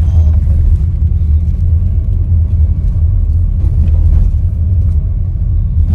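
Steady low road and engine rumble inside the cabin of a moving Toyota Sienna minivan.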